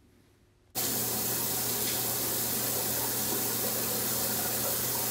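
Bathroom sink tap running in a steady, even stream, turned on suddenly about a second in, for hand washing.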